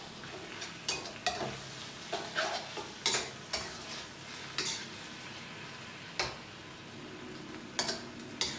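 Noodles and vegetables sizzling in a stainless steel wok as they are stir-fried in their sauce to cook through. A metal ladle scrapes and knocks against the wok at irregular intervals, about eight times.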